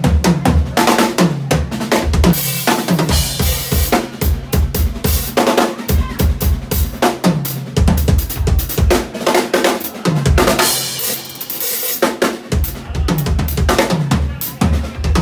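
Yamaha drum kit played hard in a live band, fast kick and snare hits driving, with cymbal crashes several times and low held notes underneath.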